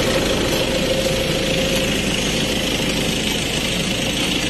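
A steady engine hum, like a vehicle engine idling.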